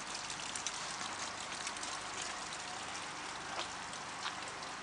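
Rain falling: a steady hiss with many small drop ticks scattered through it.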